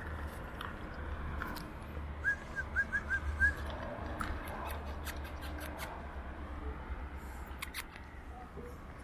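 A dog chewing and crunching food, heard as scattered sharp clicks. A quick run of five short high chirps comes between two and three and a half seconds in.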